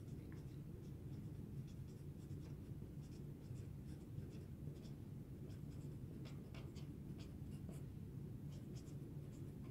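Whiteboard marker writing on paper: faint, quick scratchy strokes over a low steady background hum.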